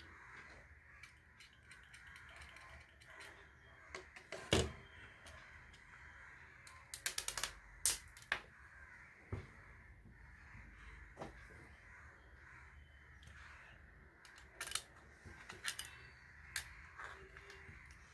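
Clicks and knocks of a transformer being fitted in place with small nuts and screws: one sharp knock about four and a half seconds in, a quick run of clicks around seven seconds, and scattered single taps after.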